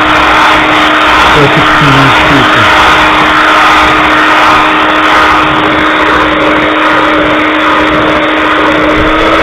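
Electric hand mixer running steadily at speed, its beaters whirring through thick batter in a bowl, with a constant motor whine.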